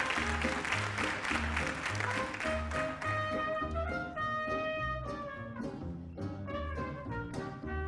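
Small jazz combo playing, with trumpet and saxophone over a steady walking low bass line. The first few seconds are a dense, busy ensemble passage; after that the horns hold clearer sustained notes.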